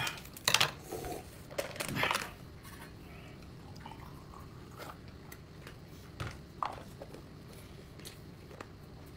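A person eating: chewing and biting, with a few sharp clicks and short crunchy bursts in the first two seconds, then only scattered light clicks.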